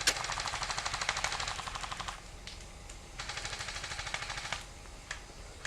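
Airsoft gun firing on full auto in two rapid bursts: the first about two seconds long, the second, starting about three seconds in, about a second and a half long.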